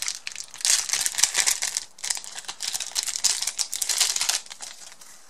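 Clear plastic wrapper crinkling and crackling as fingers pick and pull at it to get it open, a dense run of small crackles that dies away about four seconds in.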